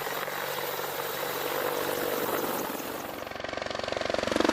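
Helicopter running, a rapid even beat of the rotor over steady engine noise, growing louder near the end.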